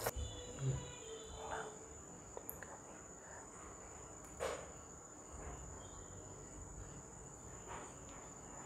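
A few soft clinks and taps of small steel bowls as food colour is poured over layered biryani rice in an aluminium pressure cooker, under a steady high-pitched whine.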